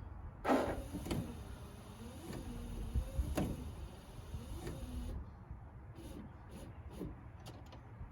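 Windshield washer pump motor on a 1986 Chevy C10 whirring in short bursts, a noisy motor making a racket, with knocks and clicks among it; the sharpest knock comes about half a second in.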